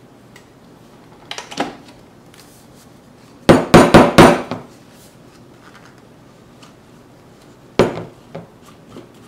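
Knocks and clatter of a Ninja personal blender's stainless steel cup as it is taken off the motor base and handled on the counter: light clicks about a second in, a quick run of four or five loud knocks around the middle, and one more sharp knock near the end.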